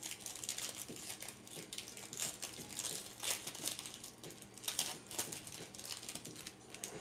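The foil wrapper of a Bowman Platinum trading-card pack crinkling and tearing as it is peeled open by hand, in irregular crackles.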